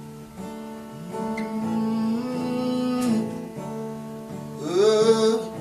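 Acoustic guitar playing slow, ringing chords as the intro to a song.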